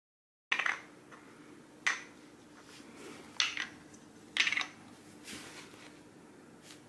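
Small plastic cups being set down one by one on a hard floor for a cat's shell game: four sharp clacks a second or so apart, then a couple of softer taps, over a faint steady hum.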